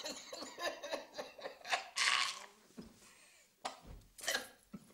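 A bedridden old man's wordless, breathy mumbling and hissing in short irregular bursts, the strongest about two seconds in. It is his attempt to speak, too unclear for the family to understand without interpreting.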